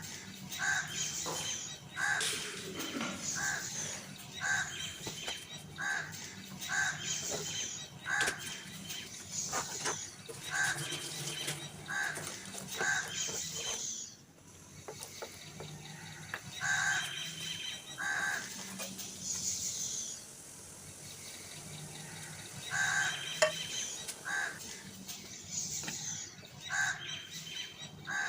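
Crow-like birds cawing: runs of harsh calls less than a second apart, broken by short pauses, with a single sharp click about three-quarters of the way through.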